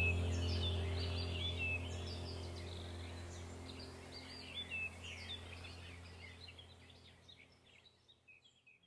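Small songbirds chirping and twittering over a steady low hum, the whole sound fading out gradually.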